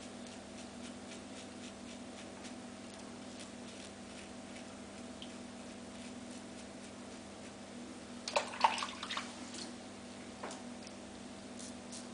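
A steady low electrical hum with faint scattered ticks. About 8 seconds in comes a short cluster of scratchy strokes, the sound of a wet shave on stubble, then one more stroke a couple of seconds later.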